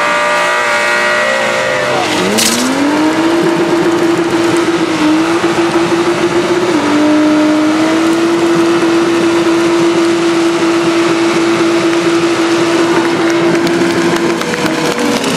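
BMW E30's engine held at steady high revs during a burnout, over the hiss of the spinning rear tyres. About two seconds in, the revs dip and climb back up, and they drop off near the end.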